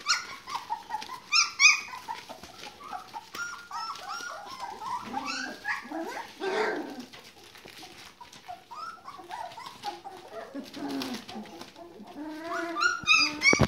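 Border collie puppies about four weeks old whimpering and yelping in a run of short, high squeaks, loudest about a second and a half in and again near the end.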